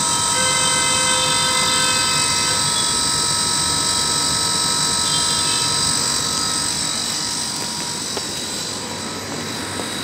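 Emerson 5.5-ton heat pump water-heating unit running: a steady mechanical whirr with several constant high whining tones over it, easing slightly about two-thirds of the way through.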